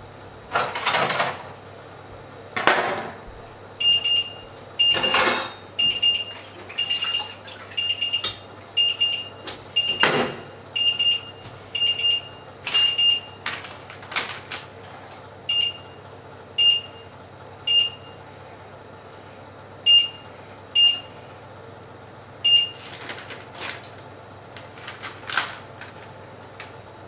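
Short, high electronic beeps, one after another about every two-thirds of a second for several seconds, then a few more at uneven gaps, as from a kitchen appliance's beeper. Between them come brief crinkling sounds of a plastic food packet being handled.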